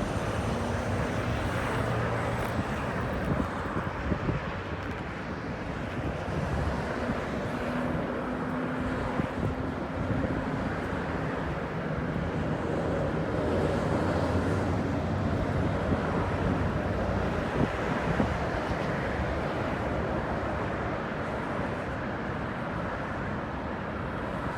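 Steady hum of road traffic, with some wind on the microphone.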